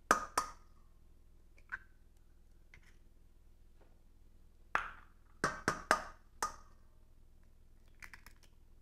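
Eggs tapped against the rim of a stainless steel mixing bowl to crack them: sharp clicks with a short metallic ring, two at the start and a quick run of about five some five seconds in.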